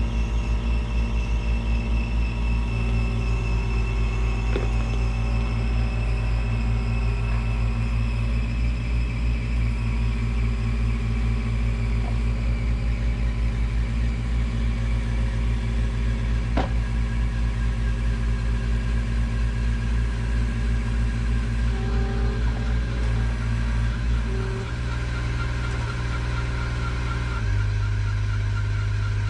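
Mini excavator diesel engines running under load, with a steady pulsing beat; the engine note shifts about 24 seconds in and again near the end.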